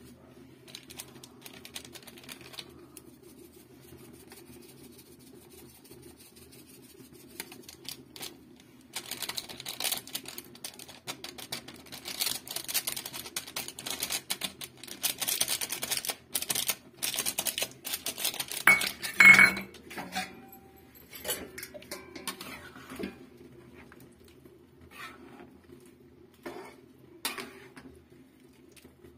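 A spatula stirring and scraping chicken curry in a steel kadai, with repeated clicks and scrapes of metal against the pan and one loud clank a little past the middle. A steady low hum runs underneath.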